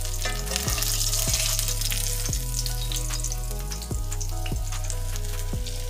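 Oil sizzling in a cast-iron skillet as a breaded oyster mushroom cutlet fries, with scattered sharp ticks and a low steady hum underneath. The sizzle is strongest in the first half.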